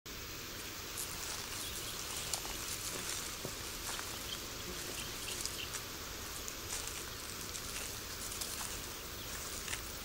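Outdoor bush ambience: a steady hiss with many scattered short clicks and ticks throughout.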